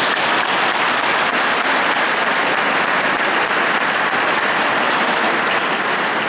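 Audience applauding steadily after the pipes stop.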